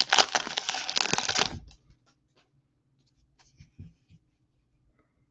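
A baseball card pack's foil wrapper crinkling as it is torn open, stopping after about a second and a half. A few faint rustles of the cards being handled follow.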